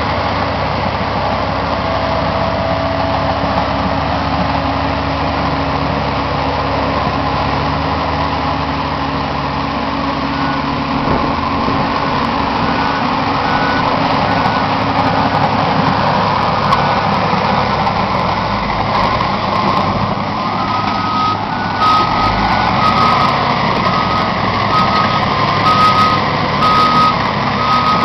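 Diesel engine of a Caterpillar 735 articulated dump truck running under load as it drives across the site. About a third of the way in, a reversing alarm starts beeping steadily, growing louder in the last third.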